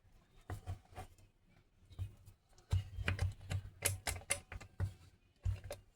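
Irregular clicks and light knocks of a 6.5 diesel starter motor and its parts being handled and turned over, busiest in the second half.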